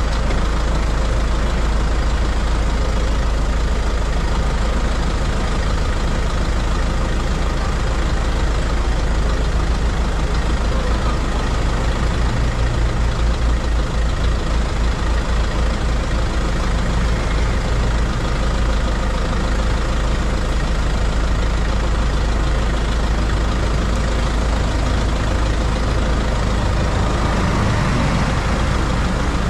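Underbody noise of a moving vehicle: engine, drivetrain and tyres with a deep rumble, heard from beneath the chassis.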